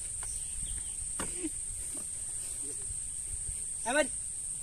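Steady high-pitched chirring of an evening insect chorus, crickets by the sound of it, with a short voice cry about a second in and a louder rising shout near the end.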